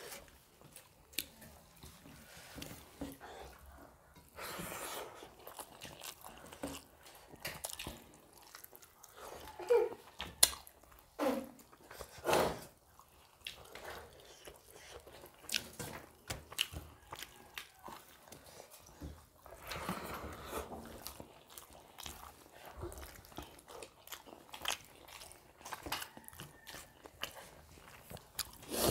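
Close-up eating sounds of two people eating rice and spinach chicken curry by hand: wet chewing, lip smacks and soft squelching of fingers mixing rice on steel plates, as scattered short clicks. A few louder mouth sounds come about ten to twelve seconds in.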